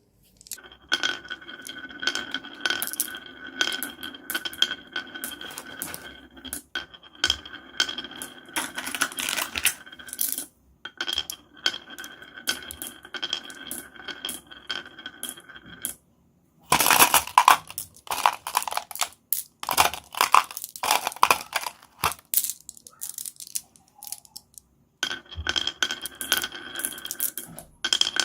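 Marbles rolling and clattering down a marble run track, a rapid run of small hard clicks and rattles with a steady ringing hum under it. The clatter stops briefly twice, then starts again louder.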